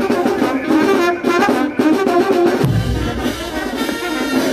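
Street band playing a march: brass instruments over bass drums and snare drums, with a heavy bass drum beat a little before the middle.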